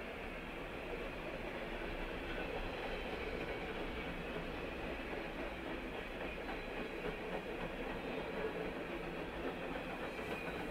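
Covered hopper cars of a long mixed freight train rolling past at steady speed: a continuous, even rumble of steel wheels on the rails, heard from inside a car.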